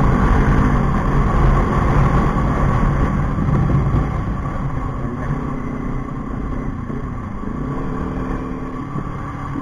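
Kawasaki Ninja 400's parallel-twin engine running through an Akrapovic exhaust while being ridden. Its note falls and rises a few times as the speed changes, and the exhaust is moderately loud rather than very loud.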